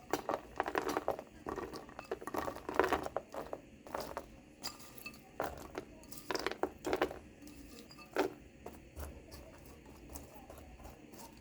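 Food preparation sounds: a run of short clicks, taps and light scrapes from utensils and pastry being handled in a dish, busiest in the first few seconds and thinning out later.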